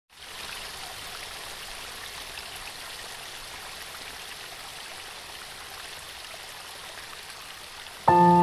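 Small waterfall cascading down rock steps, a steady, even rush of water. Music with held tones cuts in suddenly near the end.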